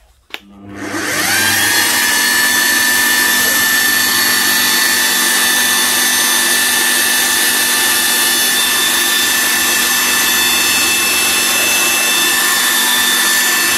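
Drill press switched on with a click, its motor spinning up with a rising whine within about a second, then running at a steady high whine while drilling a pilot hole through a thin steel tube.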